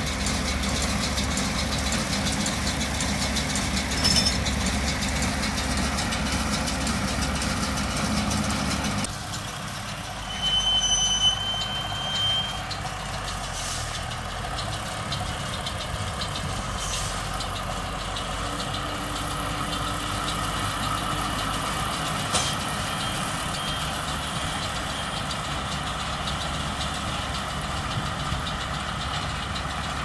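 A tractor engine runs steadily with a McHale Fusion 2 baler-wrapper working behind it. About nine seconds in the sound suddenly drops and becomes more distant. Short high electronic beeps sound twice, around a third of the way in and again past the middle.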